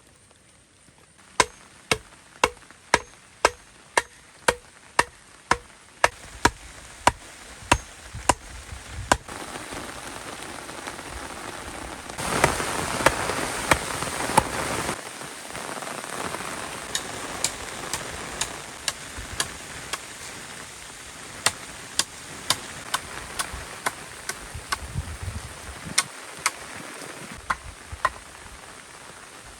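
Repeated sharp chopping strikes, about two a second, in two runs, over a steady hiss of rain. The rain swells louder for a few seconds in the middle.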